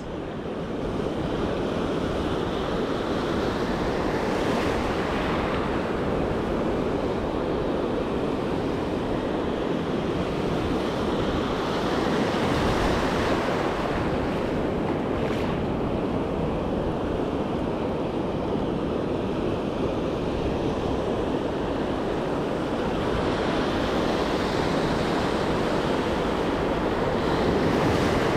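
Ocean surf breaking and washing up the beach, a steady rushing that swells as each wave comes in, with wind buffeting the microphone.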